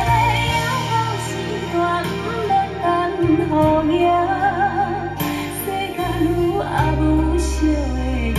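Instrumental break of a Taiwanese-language pop ballad played through Altec 604-8G coaxial loudspeakers in a room: a wavering melody over a steady bass line, no sung words.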